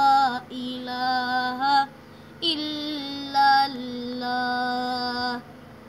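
A boy chanting an Urdu religious poem unaccompanied, drawing out long held notes in two phrases, with a short breath about two seconds in; the second phrase ends shortly before the end.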